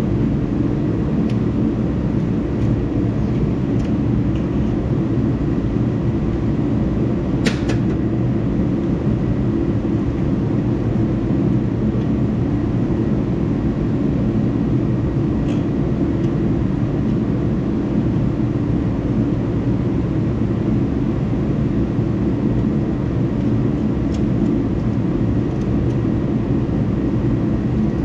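Steady low mechanical drone, with a sharp clink about seven and a half seconds in and a few fainter clicks later.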